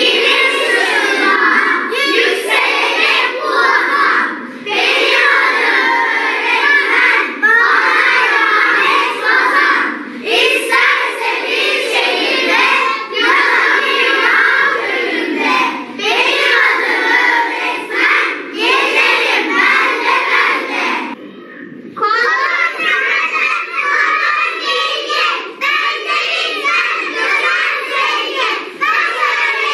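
A class of schoolchildren singing together in unison, many young voices at once. About 21 seconds in the sound dips briefly and a second group of children takes over.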